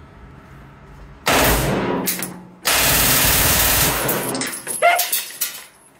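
Full-auto Glock pistol with a ported barrel firing two long bursts back to back, with a short break between them, inside a foam-lined indoor range. A few lighter clinks follow near the end.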